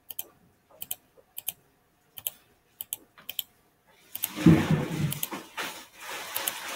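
Computer mouse clicking: sharp clicks, mostly in quick pairs about half a second apart. About four seconds in, a louder rustling, rubbing noise with a low rumble sets in and runs on under further clicks.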